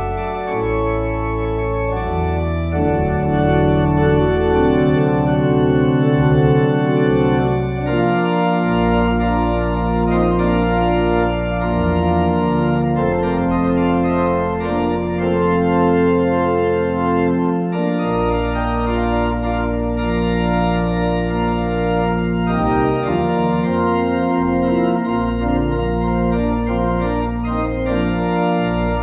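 Organ music: slow, sustained chords held over a deep bass line that shifts every few seconds.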